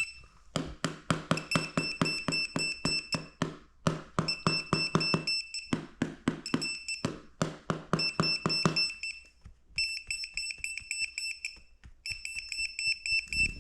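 Electronic beeper sounding rapid high-pitched beeps, several a second, in runs of one to three seconds broken by short pauses.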